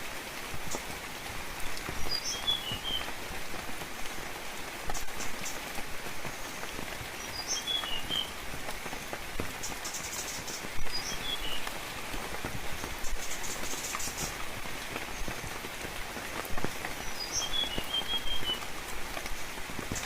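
Steady rain falling, with scattered drops ticking. A small bird repeats the same short call four times, about every four to six seconds: a high note followed by a few quick, slightly lower chirps.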